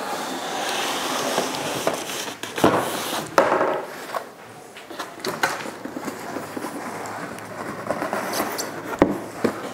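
A large cardboard appliance box being handled and turned over on a counter: cardboard scraping and rustling, broken by several knocks and thumps, the sharpest near the end.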